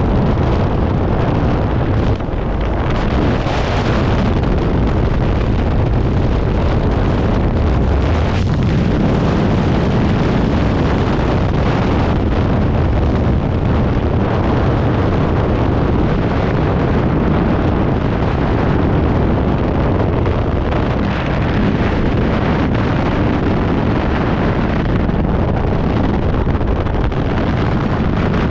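Loud, steady rush of freefall wind buffeting a skydiver's helmet-camera microphone. It begins with the wind at the jump plane's open door, with a brief dip about two seconds in.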